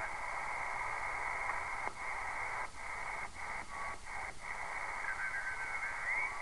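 Converted CB radio receiving on the 80-meter ham band: steady hiss and static from its speaker, broken by a quick dropout each time the channel selector is clicked over, about six times in the middle. A brief warbling comes in near the end.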